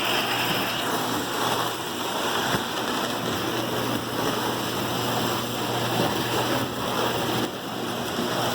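Lionel postwar toy trains running steadily around a layout: a continuous rumble of metal wheels on the track with a faint motor hum underneath.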